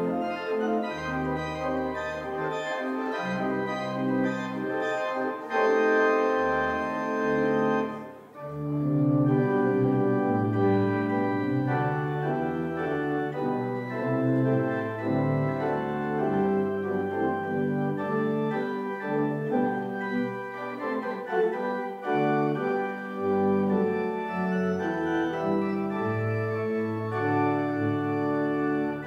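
Pipe organ playing the postlude: sustained chords over changing pedal bass notes, with a brief break between phrases about eight seconds in.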